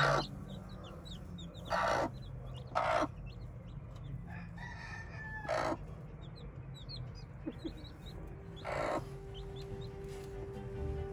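Broody hen giving about five short, harsh clucks spaced a second or more apart, over frequent high peeping from the chicks beneath her.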